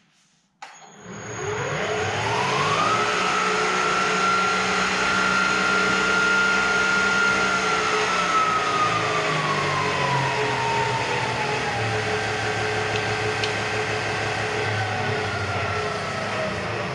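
Bridgeport Series 1 milling machine's 2 HP variable-speed J head starting up in high gear: the motor and spindle spin up with a rising whine, then run steadily. The whine then drops in pitch in two steps as the vari-speed handwheel is cranked and the spindle slows. On the freshly rebuilt drive the speed change runs backwards, which the owner puts down to having over-centered the chain.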